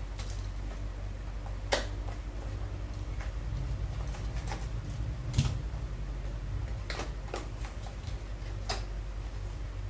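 A small product box and its packaging being handled and opened by hand: a few scattered sharp clicks and taps, two of them louder, over a steady low hum.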